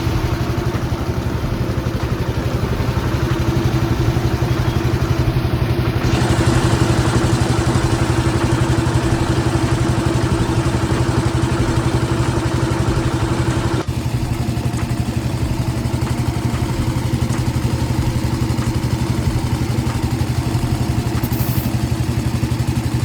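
An engine running steadily at idle, a constant low hum with a fast even pulse. The background changes abruptly about 6 and 14 seconds in, where the recording jumps.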